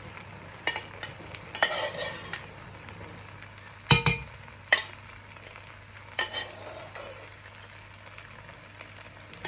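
Fried rice sizzling gently in a non-stick pot on the hob, with a few sharp clicks and knocks of kitchenware against the pot, the loudest about four seconds in.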